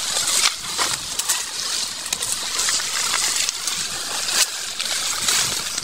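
Leafy brush and dry twigs rustling and snapping as they are pushed aside and handled, with a run of small crackles.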